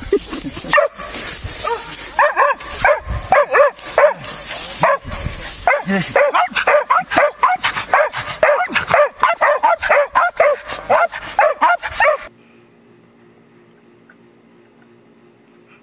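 Dogs barking and yipping in rapid, excited bursts of several barks a second. The barking cuts off abruptly about twelve seconds in, leaving a faint steady hum.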